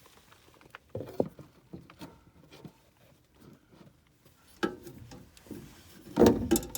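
Metal parts of a gas furnace's burner assembly being handled and fitted back in place: scattered clicks and knocks, with a louder cluster of clatter about six seconds in.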